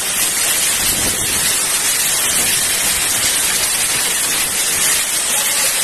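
Torrential wind-driven rain in a severe storm, a loud steady hiss of rain lashing the deck and surroundings.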